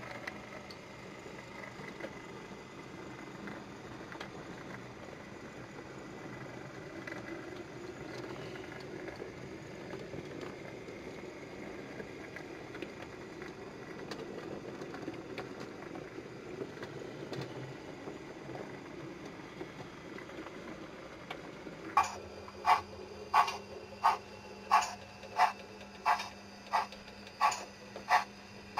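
O gauge model diesel shunter and its wagons rolling along the track with a steady low rumble. About three-quarters of the way in, this gives way to a steady low hum and a sharp click repeating about every 0.7 seconds.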